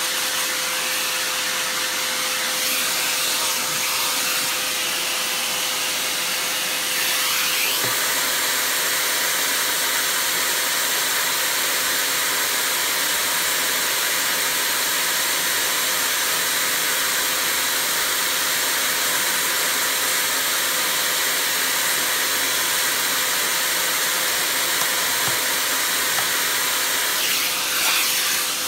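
A vacuum cleaner running steadily while it sucks dust off an old vacuum cleaner. About seven seconds in, its steady whine drops away and it gets slightly louder, and the sound shifts again near the end.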